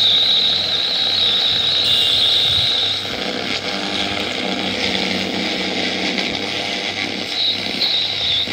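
Ramsons Popular 841 portable radio receiver putting out a steady static hiss with a thin high whistle over it. The whistle drops out about three seconds in and comes back near the end.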